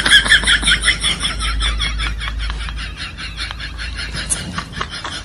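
Comedy sound effect of rapid, high-pitched giggling, a quick string of short laugh pulses that slowly fades.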